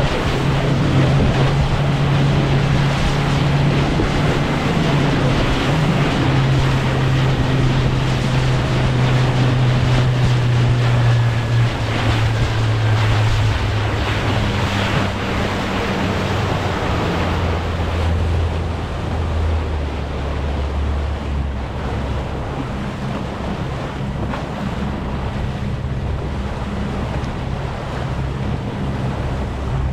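Boat engine running over the rush of water and wind on the microphone; about halfway through the engine note drops to a lower steady hum as the boat slows.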